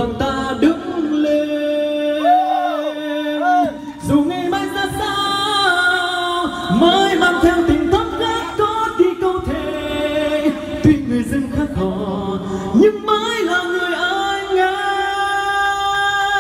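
Live Vietnamese pop ballad: a singer's voice with held, wavering notes over backing music from the stage sound system.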